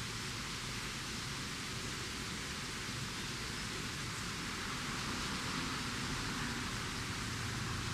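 Steady, even hiss of noise with no distinct sounds standing out of it.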